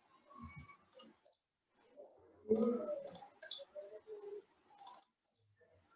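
Computer mouse clicking: a handful of short, irregular clicks, fairly quiet, as objects are selected and grouped in a 3D modelling program.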